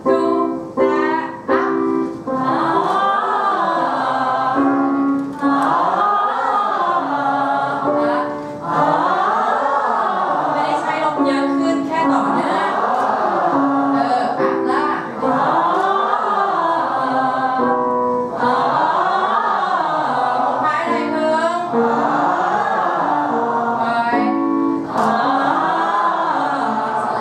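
A piano plays a short run of notes, and a group of workshop singers echoes it on an open vowel, sliding up a scale and back down. The call and answer repeats about every three to four seconds: a vocal warm-up exercise following the piano.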